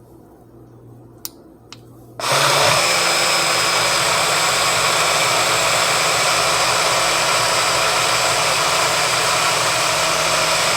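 Two faint clicks, then about two seconds in a BlendJet 2 portable blender's motor starts abruptly and runs steadily, blending frozen mango chunks in milk.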